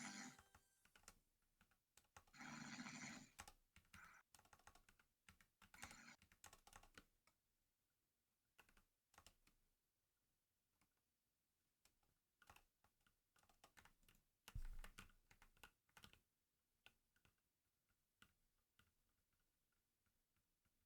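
Quiet snoring from a sleeper: a few snoring breaths about three seconds apart in the first six seconds, then scattered faint clicks and ticks with a soft low thump about two thirds of the way in.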